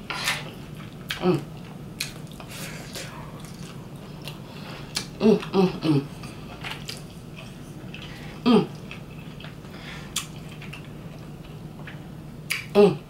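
Close-up eating sounds: chewing, wet mouth clicks and lip smacks from a mouthful of curry turkey wing and rice, with a few short closed-mouth voiced sounds about five and eight seconds in.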